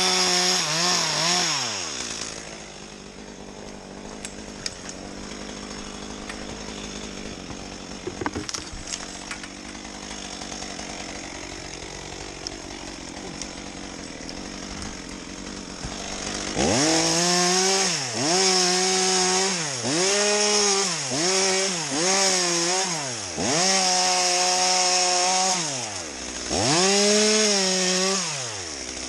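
Two-stroke chainsaw at full throttle, its revs falling away about two seconds in. After a quieter stretch with a few sharp knocks, it is revved hard again in a run of bursts, a second or two each, dropping between them.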